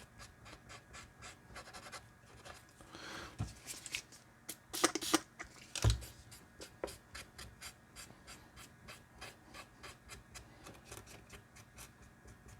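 Faint scratchy rubbing and wiping strokes as old heat paste is cleaned off, with a few louder knocks, the loudest about six seconds in.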